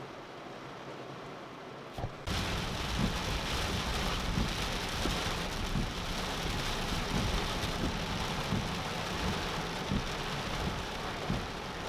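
Heavy tropical-storm rain, a dense steady hiss that turns suddenly much louder about two seconds in, with frequent low thumps under it.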